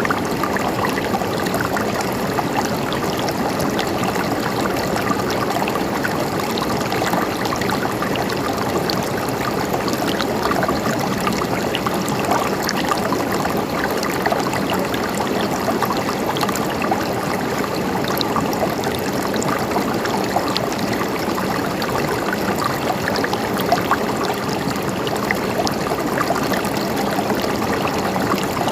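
Gently flowing water, running and trickling steadily with many small splashes and droplets throughout.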